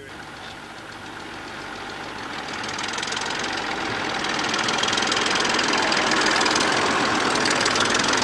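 Small tractor engine running under load as it pulls a loaded cart away, growing steadily louder as it passes close by.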